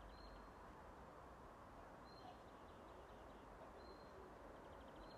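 Near silence with faint bird calls: a short high note repeating about every two seconds, and twice a brief faint trill.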